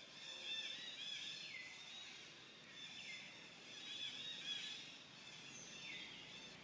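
Faint outdoor ambience full of high-pitched chirping calls, with three calls that slide down in pitch spread across the few seconds.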